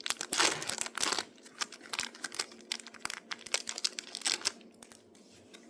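A foil trading card pack wrapper being torn open and crinkled, in quick irregular crackles that die down about four and a half seconds in.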